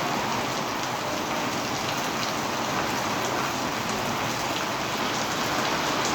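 Heavy rain pouring down and drumming on surfaces, a steady dense hiss with scattered drop hits.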